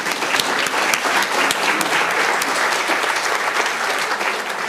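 Auditorium audience applauding steadily.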